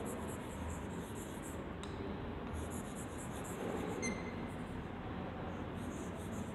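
Chalk writing on a blackboard: scratchy strokes in three runs with short pauses between.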